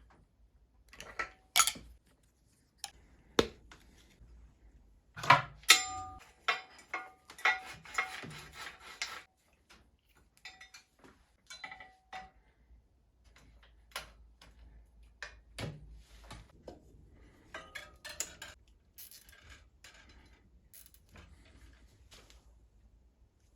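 Bicycle headset parts and tools being handled: scattered metallic clicks and clinks, with a busier run of clinking and light ringing about a third of the way in.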